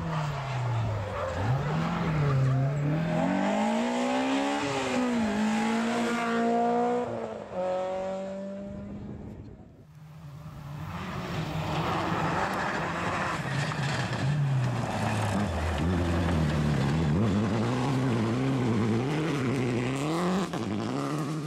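Two rally cars at full throttle on a gravel stage. The first car's engine revs rise and fall through the gear changes as it passes, then fade away. A second car then comes in, its engine revving up and down over the hiss of tyres on loose gravel.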